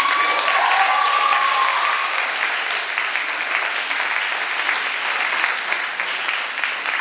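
Audience applauding. A single high whoop rises at the start and is held for about two seconds.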